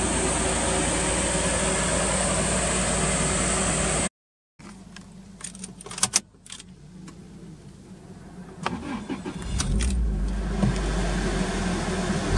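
A steady outdoor noise, then a few sharp clicks inside the car, and about nine seconds in the Toyota Altezza RS200's 3S-GE four-cylinder cranks and starts, settling into a steady idle.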